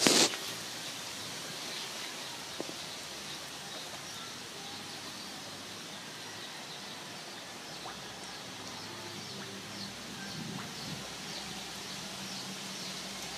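Koi splashing and churning the pond surface, a steady watery hiss with faint high chirps through it and a brief louder burst right at the start.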